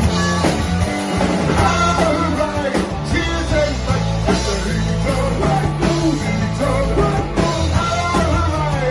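Live rock band playing an up-tempo punk-rock song, with electric guitar, bass, drums and a lead vocal singing over them.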